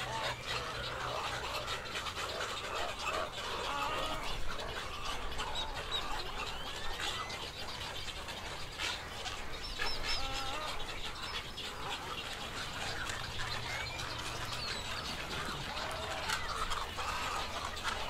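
A mixed colony of nesting waterbirds (egrets, cormorants and roseate spoonbills) calling all at once: a dense, continuous tangle of overlapping croaks, squawks and chatter, with scattered short clicks.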